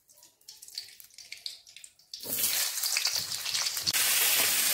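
Mustard oil crackling faintly as it heats in a kadai, then, about two seconds in, a sudden loud, steady sizzle as potatoes go into the hot oil and fry.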